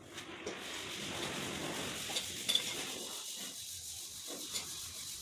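Adjustable wrench turning the nut on a wall anchor bolt to tighten it into the wall: a continuous metal-on-metal scraping grind, with a few sharp metallic clicks about two and a half seconds in.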